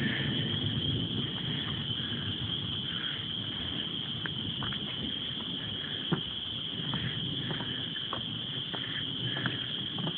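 Steady, unbroken high-pitched chorus of crickets, under a low rustling rumble and a few sharp ticks, the sharpest about six seconds in.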